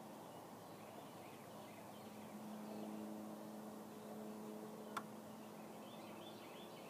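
Faint outdoor ambience by a river: scattered small bird chirps over a low steady background, with a low steady drone that rises and fades in the middle and a single sharp click about five seconds in.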